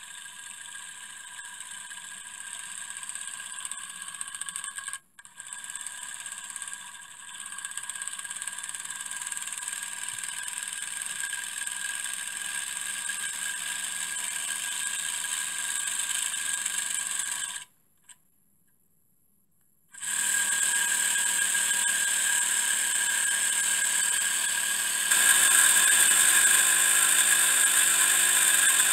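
Miniature three-cylinder steam engine with Maudslay reversing gear running fast on steam: a steady high-pitched whir over a hiss. The sound cuts out for about two seconds past the middle, then returns louder and gets louder again near the end.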